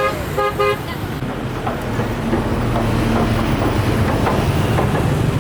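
Steady rumble of road traffic passing on a busy road, with a brief pitched beep about half a second in.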